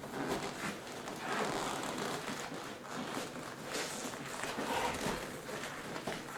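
Seat upholstery cover being stretched and worked by hand over a seat's foam padding: irregular rustling and rubbing with small knocks.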